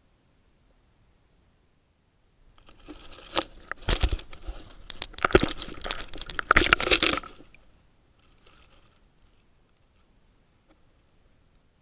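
Underwater scraping, clicking and knocking of an SJ1000 action camera's waterproof housing rubbing against rocks and shells, a burst of crackling handling noise with several sharp knocks that starts about two seconds in and stops a few seconds later.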